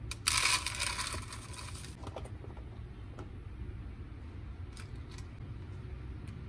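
Dry rolled oats poured from a scoop into a plastic food container: a rustling hiss for about a second and a half near the start. Then a few light clicks and taps as cartons are handled, over a low steady hum.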